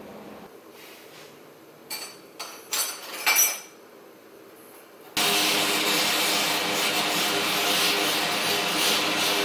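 A few short scraping sounds at a workbench. Then, about five seconds in, a jeweller's gas torch comes on with a sudden, loud, steady hiss.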